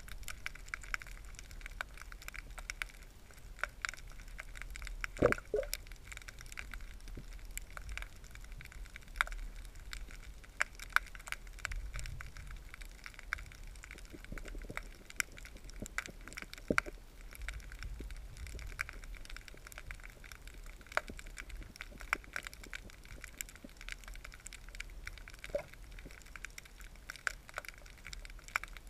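Underwater crackling: a steady scatter of sharp clicks and snaps, with a few louder snaps along the way, over a low rumble of moving water.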